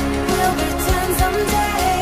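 Background music: a melody over a steady drum beat.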